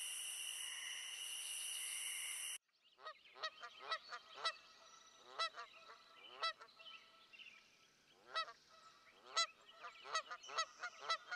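A steady high hiss that cuts off abruptly about two and a half seconds in. It is followed by a run of goose honks, several overlapping, at about two a second.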